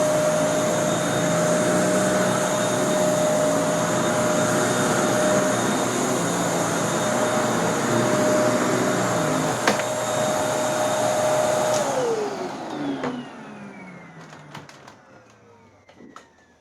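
Kenmore Elite 31150 vacuum cleaner running with a steady motor whine on its first run after reassembly. About twelve seconds in it is switched off and the whine falls in pitch as the motor spins down, with a few light clicks near the end.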